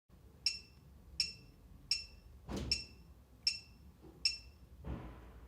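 Security alarm keypad beeping once per key press as a disarm code is entered: six short beeps about three-quarters of a second apart. Two soft thumps come in between, one near the middle and one near the end.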